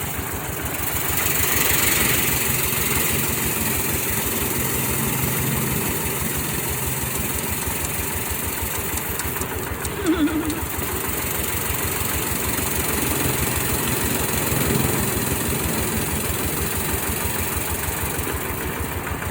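Engine of a rice threshing machine running steadily, with a rapid, even firing beat. A brief chirp cuts through about halfway.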